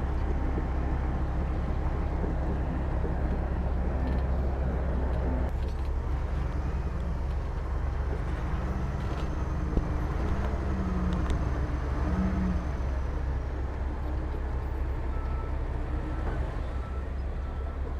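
Diesel engine of heavy earthmoving machinery running steadily, a deep low rumble, with one sharp knock about ten seconds in.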